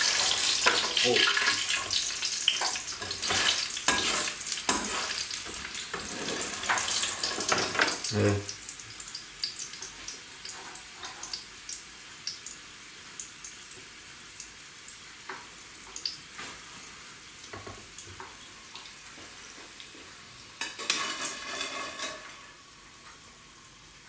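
Hot frying oil sizzling as French fries are scooped out of the pan with a metal skimmer, with sharp clicks and scrapes of the skimmer against the pan. The sizzling is loudest for the first eight seconds and then dies down to a faint hiss with scattered ticks. About three seconds before the end there is a brief burst of sizzling and clatter.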